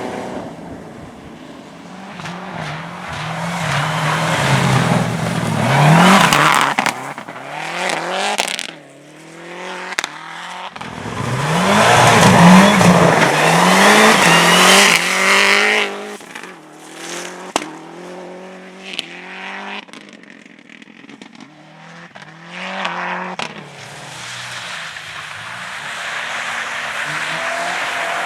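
Motorsport cars driven hard on a track, engines revving up and dropping back through gear changes, loudest as a car passes about six seconds in and again from about twelve to fifteen seconds in.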